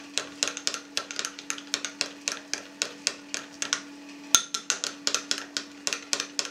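Metal teaspoon stirring mustard in a white ceramic bowl, clinking against the sides in quick, even ticks about five a second, with one sharper knock about four seconds in. Warmed aspic gelatin is being beaten into the mustard until smooth.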